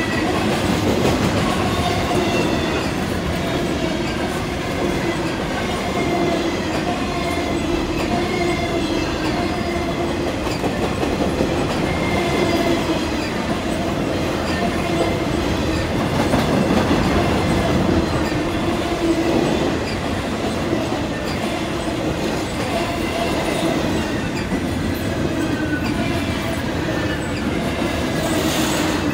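Intermodal container well cars of a freight train rolling past: a steady rumble and clatter of steel wheels on the track, with short squealing tones from the wheels coming and going.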